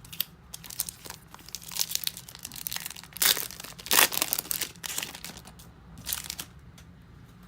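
Foil wrapper of a 2014 Bowman Chrome football card pack crinkling as it is torn open, a dense run of crackling rustles that is loudest around the middle.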